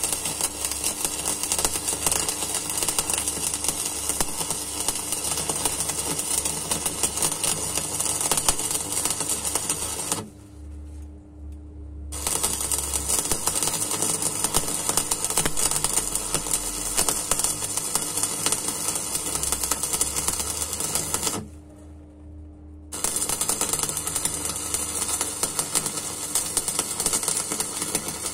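Stick (shielded metal arc) welding: the electrode's arc crackling and sizzling steadily as the bead is laid. The arc stops twice for a second or two, about ten seconds in and again a little past twenty seconds, then strikes again. A low hum runs underneath and carries on through the pauses.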